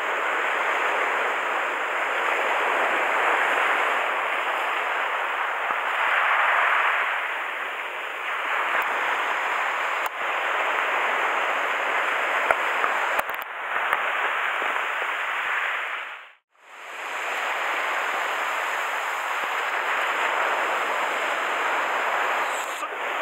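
Surf breaking and washing up a gravel beach: a steady rushing hiss that swells and eases with the waves. The sound cuts out briefly about two-thirds of the way through.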